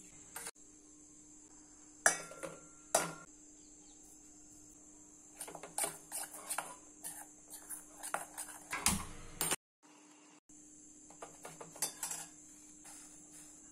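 Stainless steel kitchen utensils clinking and knocking. Two loud metallic clinks come about two and three seconds in, the first ringing briefly, followed by a run of light taps and scrapes. A steady hum runs underneath.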